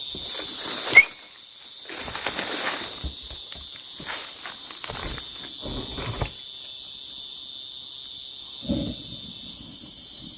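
Night chorus of crickets and other insects, a steady high-pitched buzzing. A sharp knock about a second in, then scattered rustling and clattering over the next few seconds and once more near the end.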